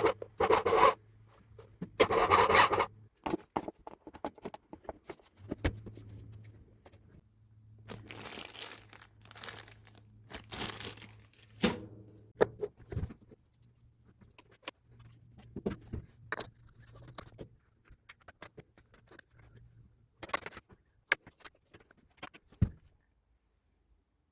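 Rebuild work on a Hilti TE 70 hammer drill: irregular bursts of scraping and rubbing, loudest in the first three seconds, with many scattered sharp clicks and knocks.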